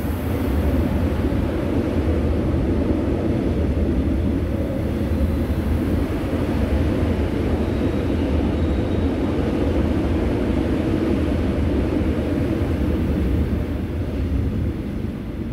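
Out-of-service Line 4 electric subway train running through the station without stopping: a steady rumble of wheels on the track, heard through the closed platform screen doors. It eases off near the end as the last cars clear the platform.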